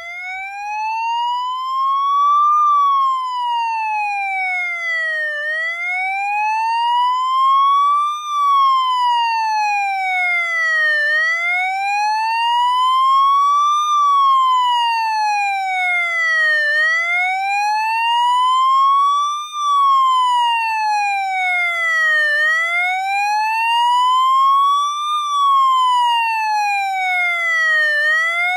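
Police motorcycle siren sounding a slow wail: one pitched tone rising for about three seconds and falling for about three, repeated about five times.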